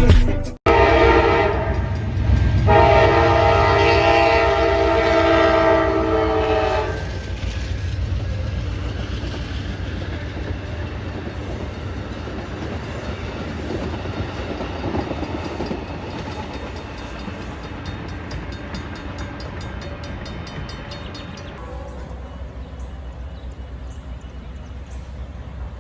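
A diesel locomotive's horn sounds a short blast and then a longer one, a chord of several steady notes. The train then rolls past with a steady rumble and wheel clicking on the rails, slowly fading.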